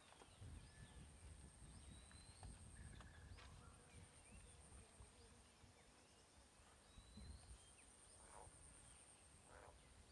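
Near silence: faint open-air riverside ambience with a few short bird chirps here and there, a steady high-pitched drone and a low wind rumble.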